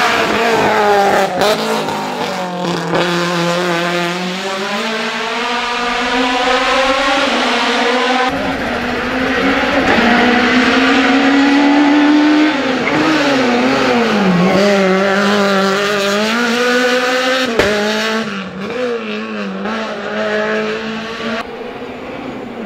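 Small Peugeot hillclimb hatchbacks' four-cylinder engines racing past at high revs, one car after another. The pitch drops as the driver lifts or shifts for a bend and climbs again as the car pulls away. The sound switches abruptly from one car to the next twice.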